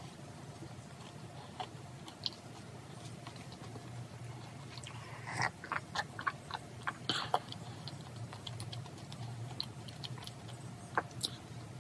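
Close-up chewing of a soft financier cake, with a cluster of light clicks and clinks around the middle while a glass of americano is lifted and drunk from, and a fresh bite near the end. A steady low hum sits under it all.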